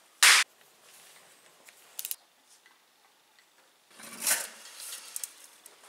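Hand-work noises on an engine being reassembled: a short, loud burst of noise just after the start, a few light clicks, and another brief noise burst about four seconds in.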